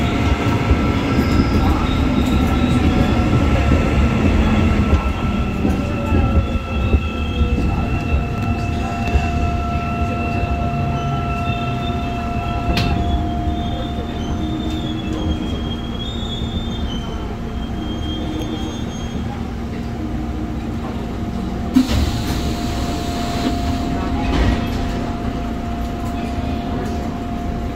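Busan Metro 1000-series subway train with VVVF-IGBT inverter drive slowing into a station: motor and inverter whine falling in pitch over rumble and wheel squeal. About halfway through it settles to a steady, quieter hum at a standstill, with a hiss lasting about two seconds near three-quarters of the way through.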